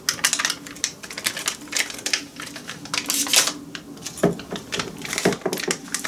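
Metallised anti-static foil bag crinkling and crackling as it is ripped open by hand, a dense irregular run of sharp crackles.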